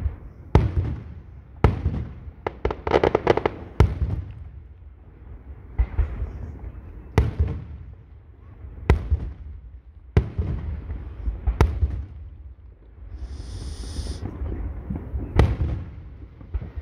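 Aerial firework shells bursting in a display: about ten sharp booms spread through, with a dense run of crackling about three seconds in and a brief high hiss about three-quarters of the way through.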